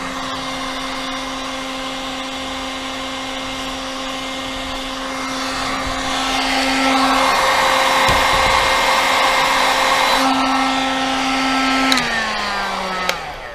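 Handheld electric heat gun running, its fan motor giving a steady hum over a hiss of blown hot air as it shrinks heat-shrink tubing around a drone landing-gear leg; it gets louder about six seconds in. Near the end it is switched off and the hum falls in pitch as the fan winds down.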